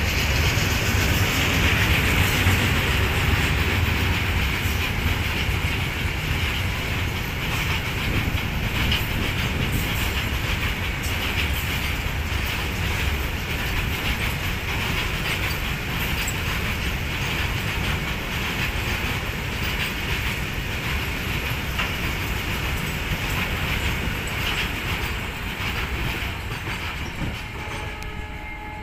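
A long freight train's loaded open wagons and steel-coil flat wagons rolling steadily past, their wheels clattering over the rail joints. The sound fades near the end as the brake van passes.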